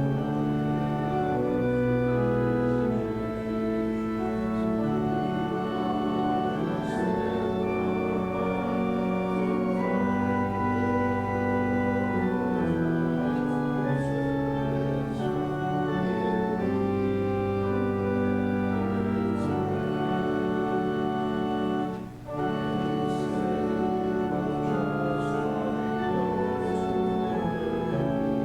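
Church organ playing a hymn tune in sustained chords that change every second or so, with a short break about 22 seconds in, between phrases.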